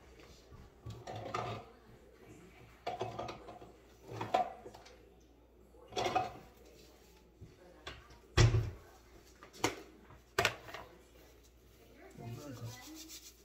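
Kitchen clatter: dishes and utensils being handled, with three sharp knocks in the second half, the first, about eight and a half seconds in, the loudest. Brief low voice sounds come and go between them.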